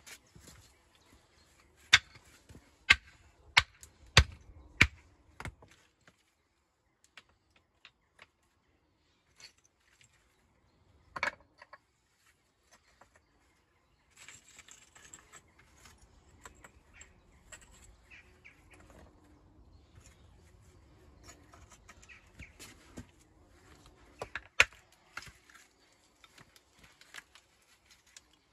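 Stones being worked on a dry stone wall: a run of six sharp knocks of stone on stone, about one every half second, a couple of seconds in. Then one more knock, and later a long stretch of scraping and shifting with scattered small clicks and one more sharp knock near the end.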